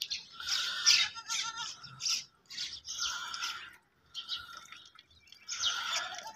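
Newborn goat kids bleating in short, high-pitched cries, repeated about half a dozen times with short gaps between.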